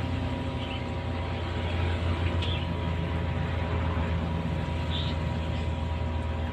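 Aquarium pump humming steadily: a low, even drone with faint steady tones above it.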